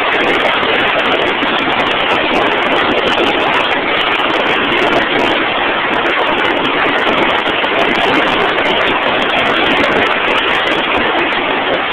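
Drilling rig machinery running with a steady, loud, noisy din that does not change.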